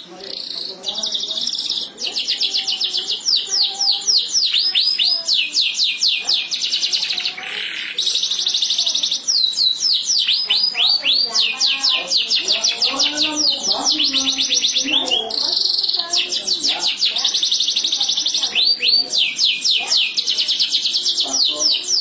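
Domestic canary singing a long, continuous song: fast runs of repeated falling whistled notes alternating with buzzy rolled trills, with only brief pauses.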